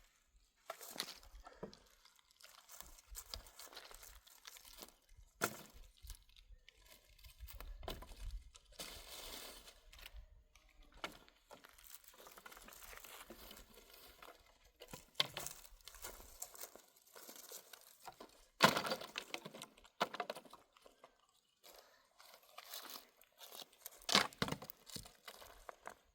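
Irregular rustling, crinkling and crunching, as of things being handled, with two louder sharp sounds, about two-thirds of the way through and near the end.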